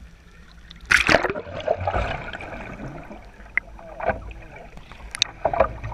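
Seawater splashing and gurgling around an action camera as it dips in and out of the waves beside a boat hull, over a steady low rumble. There is a loud splash about a second in and smaller ones later.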